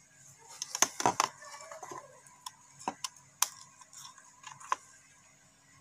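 Scattered sharp clicks and light knocks of plastic electrical fittings being handled: an incandescent bulb being pushed into a plastic bayonet lamp holder beside a switchboard.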